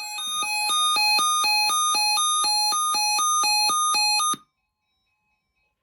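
Short electronic keyboard-like jingle: a rapid run of evenly spaced notes, about four a second, bouncing between two main pitches, which stops abruptly about four and a half seconds in.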